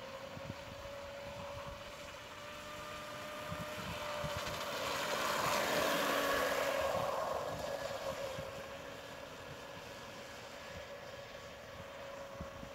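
Pro Boat Blackjack 24 RC boat's 3S brushless electric motor whining at speed with hull spray hissing, swelling as the boat passes close about five to seven seconds in, then fading as it runs off across the lake.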